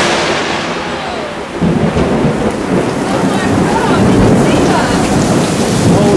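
Loud rolling thunder from a close lightning strike, easing and then swelling again about a second and a half in, with rain falling.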